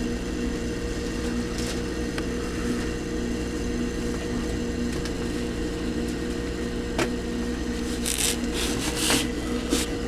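A steady low hum with an evenly pulsing tone in it, broken by a couple of single clicks and a few brief rustles about eight to nine seconds in.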